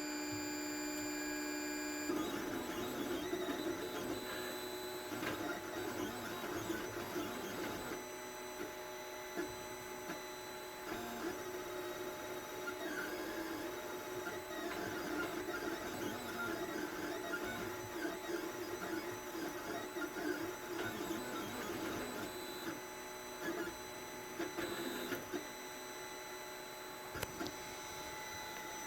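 Anycubic i3 Mega 3D printer, converted into a pen plotter, running its stepper motors as it moves the marker head and bed back and forth to draw an outline. A steady hum for about two seconds, then rapidly changing whirring tones as the drawing moves begin.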